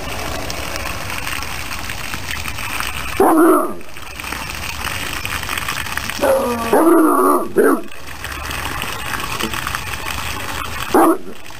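Young bloodhound barking at a stream of water gushing onto the ground: one bark about three seconds in, a long wavering bark and a short one between about six and eight seconds, and one more near the end. The water splashes steadily underneath.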